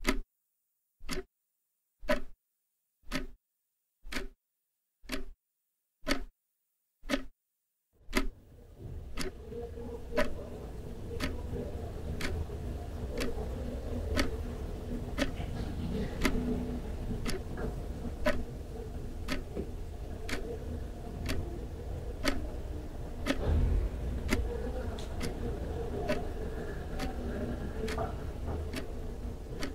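A clock ticking about once a second, at first alone in silence. About eight seconds in, a steady low rumble with a faint hum comes in under the ticking.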